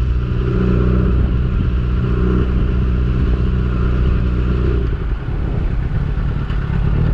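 Yamaha R6 inline-four engine running at a steady speed. About five seconds in, the steady note breaks up and turns uneven.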